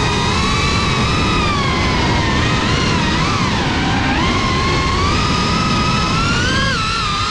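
Brushless motors and propellers of a GEPRC Cinelog35 FPV drone whining, the pitch rising and falling again and again with the throttle, over a low rumble of wind noise.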